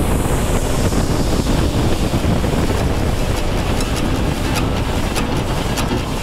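Wind rushing over the camera microphone of a motorcycle riding at motorway speed: a loud, steady roar of wind and road noise, with a few faint ticks in the second half.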